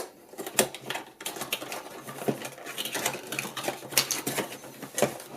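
Plastic packaging being handled: irregular crinkling with quick clicks and taps.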